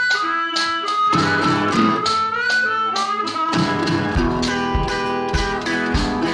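Background music with acoustic guitar playing and a melody line above it; a low, steady beat comes in about halfway through.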